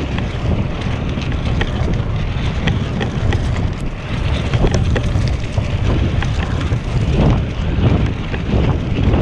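Wind buffeting a GoPro's microphone on a moving bicycle, a steady heavy rumble, with scattered small clicks and crackles from the tyres rolling over a leaf-strewn gravel trail.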